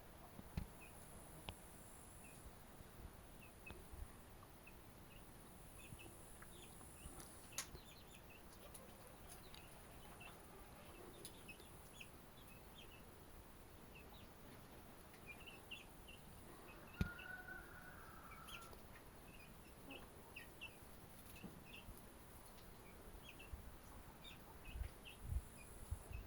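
Faint bird calls: short, high chirps scattered all through, with one longer call lasting about a second roughly two-thirds of the way in.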